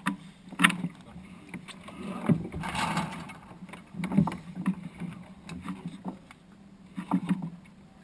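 Water slapping and sloshing against a small wooden sailing dinghy's hull, with irregular knocks and clunks from the boat and its fittings. There is a longer rush of water about three seconds in.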